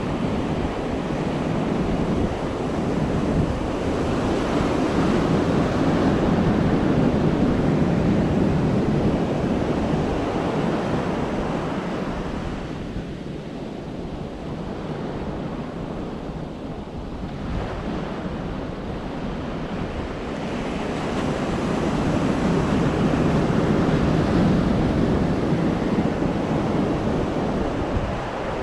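Atlantic surf breaking and washing up the beach, swelling to a peak twice and easing off between, with wind rumbling on the microphone.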